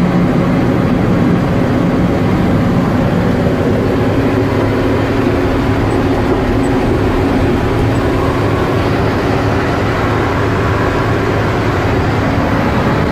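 Mack ENDT673 Thermodyne turbocharged diesel of a 1978 Mack CF611 fire truck running steadily while the truck cruises at highway speed.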